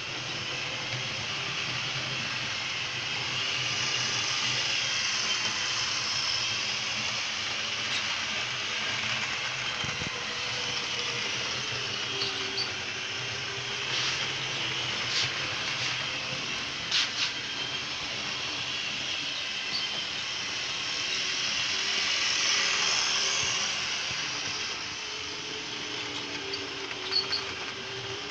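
Model diesel locomotive with its coaches running on a model railway track: a steady whirring hiss of motor and wheels, with a few scattered short clicks.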